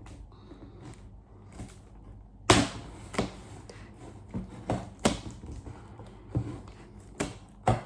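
Irregular sharp clicks and scratches of a knife that is not sharp enough working at a taped cardboard box. They start about two and a half seconds in, and there are about nine of them.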